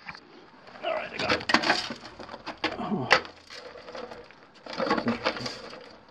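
Irregular scraping, knocking and rustling of someone moving about on rock and handling gear, with brief indistinct voice sounds.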